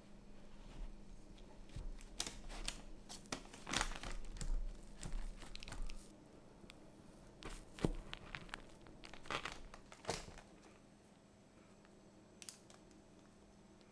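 Chef's knife cutting through an Oreo and mascarpone cake on parchment paper: crackling crunches through the Oreo cookie layers and crinkles of the paper under the blade, in a string of short sounds that stop about ten seconds in.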